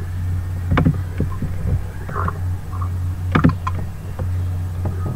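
Steady low electrical hum with two sharp computer-mouse clicks, one about a second in and one about three and a half seconds in.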